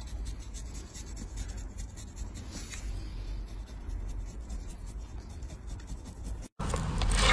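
A flat metal scraper blade shaving thick, dry, cracked callus from a heel: a fine, rapid scratching. It cuts off abruptly about six and a half seconds in, and a louder room sound takes over.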